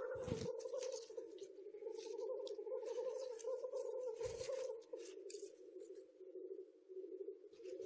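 Footsteps crunching and rustling through dry leaf litter and twigs on the forest floor, dense at first and thinning out about five seconds in. Two dull thumps, one at the start and one about four seconds in, and a steady hum under it all.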